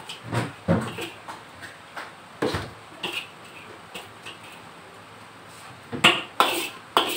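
Scattered clinks and knocks of kitchen utensils against dishes and cookware, with a busier run of clatter about six seconds in.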